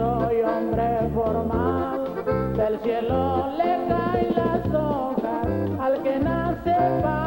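Norteño band music: an accordion-led melody over a steady, alternating bass rhythm, with no sung words.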